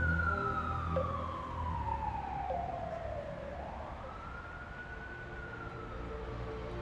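A siren wailing: a single tone slowly falls over about three seconds, then rises again and holds near the end.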